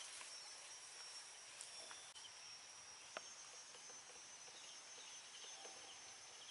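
Near silence: faint outdoor ambience with a steady high insect drone and one faint click about three seconds in.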